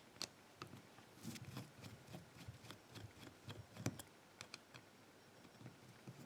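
Faint, scattered clicks and light rattles of a mortice lock cylinder and a screwdriver being handled, a few small taps at irregular moments, the clearest one a little before four seconds in.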